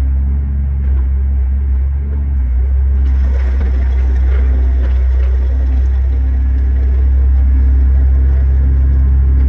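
Steady low drone of a compact track loader's engine running at working throttle while it drives a Harley rake over gravel.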